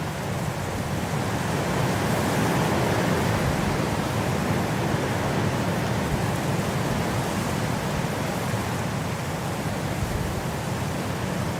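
Wind blowing as an even rush of noise, swelling a little over the first couple of seconds and easing off again in the second half.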